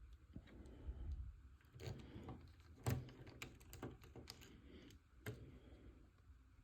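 Small plastic model-kit parts and a precision screwdriver being handled while tiny screws are fitted: a faint, irregular scatter of light clicks and taps, the sharpest about three seconds in.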